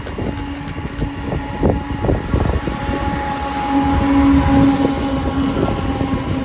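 CP GE AC44CWM diesel-electric locomotive passing close by at the head of a container train, its steady engine tone loudest about four seconds in as it goes past, with low rumble and a few sharp knocks from the wheels and cars in the first seconds.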